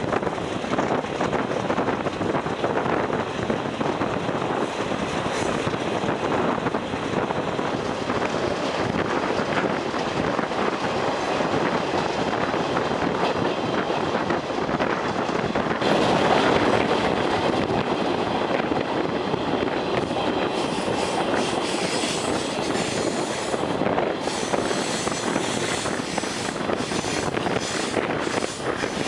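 Running noise of a moving passenger train, heard from a window of a stainless-steel Budd-Mafersa car: a steady rush of wheels on rails and passing air, growing louder about halfway through.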